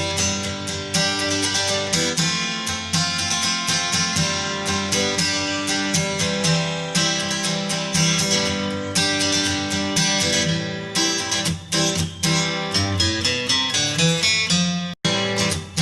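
Background music: acoustic guitar strumming and picking at a steady pace, with a momentary break about fifteen seconds in.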